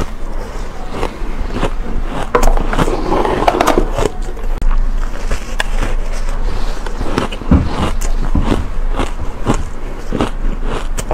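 Close-miked crunching of shaved ice: mouthfuls bitten and chewed, and a gloved hand scooping and squeezing the ice in a tray, a steady run of sharp crackles, densest about two to four seconds in, with a few heavier low crunches a little after halfway.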